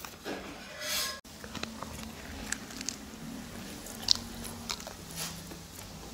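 A person biting into and chewing a chicken-stuffed crepe, with its paper wrapper rustling about a second in and a few sharp clicks along the way, the strongest about four seconds in.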